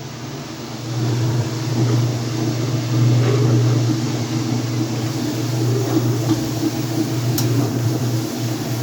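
Whirlpool washing machine running with a load of sacks, its motor giving a steady low hum that swells slightly about a second in.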